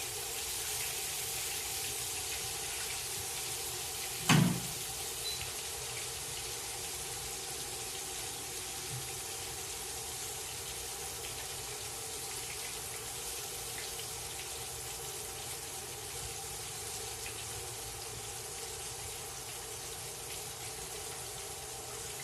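Breaded fish fillets frying in hot peanut oil in a cast-iron pan: a steady sizzle that eases slightly as the fish's excess moisture cooks out. A single sharp knock about four seconds in.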